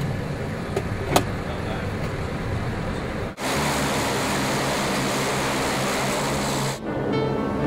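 Turboprop airliner engines running on the ground, heard as a steady hum with a sharp click about a second in. Then a louder, steady rushing engine noise starts abruptly and cuts off shortly before the end.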